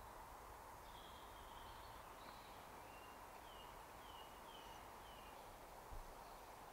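Faint woodland ambience with a small bird singing a run of short, falling high notes, about two a second. A soft low knock comes near the end.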